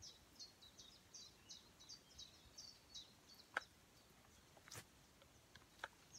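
Faint woodland birdsong: a small bird repeats short high notes about three times a second for the first three seconds or so. A few sharp clicks follow, the loudest about three and a half seconds in.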